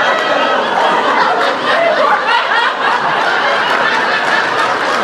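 An audience laughing and chuckling together, many voices overlapping without a break.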